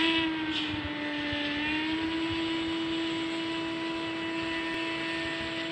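A single steady pitched tone with overtones, sliding up slightly as it starts and then held unbroken.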